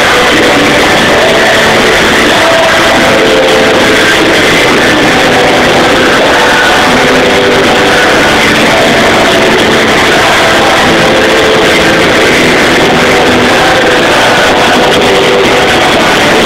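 Rock band playing live with electric guitars, recorded from within the audience; the sound is loud and unbroken throughout.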